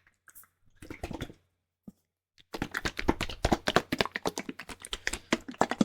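Close-up clicks and taps of fingers working over a microphone: a short flurry about a second in, then dense, rapid crackling clicks from about two and a half seconds in.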